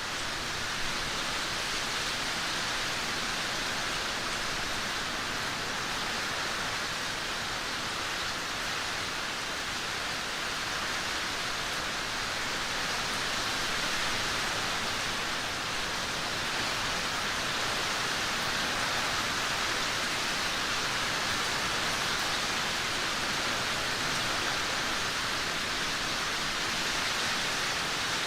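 Steady rainfall, a continuous even hiss with no separate drops or thunder standing out.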